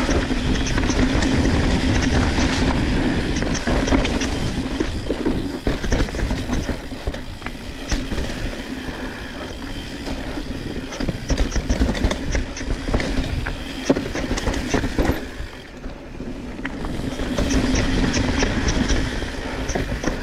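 Mountain bike rolling fast down a rooty, rocky dirt trail: tyres rumbling on the ground and the bike rattling, with sharp knocks over the roots and rocks, busiest in the middle. A rapid high ticking comes and goes near the start and the end.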